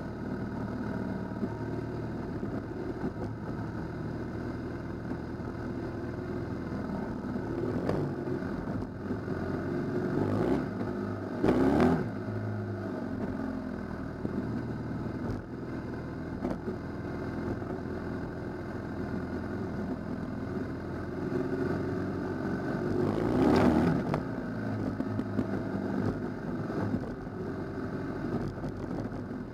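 Motorcycle engines running steadily on a dirt-track ride, swelling louder twice: once near the middle and again about three-quarters of the way through.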